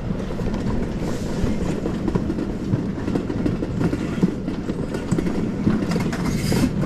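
Summer toboggan sled running down its stainless-steel trough track: a steady rumble with irregular rattling from the sled in the metal channel.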